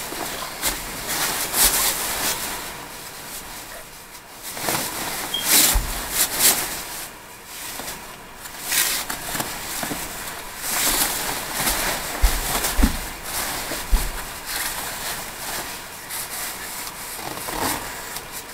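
Rustling and swishing of snow overalls being pulled on and adjusted, in irregular bursts, with a few dull thumps.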